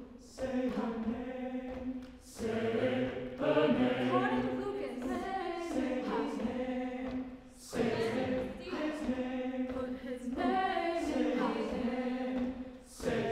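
Mixed chamber choir singing a cappella in sustained chords. Short breath gaps break the phrases every two to three seconds, and each new phrase starts with a sibilant hiss.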